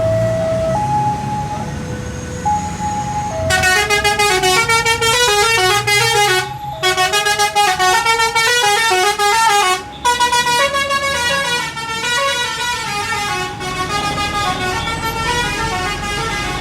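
Basuri multi-tone 'telolet' bus horn: a few single held notes, then from about three and a half seconds in a loud, fast tune of stepped notes, broken by two brief gaps. The bus's engine rumbles low underneath.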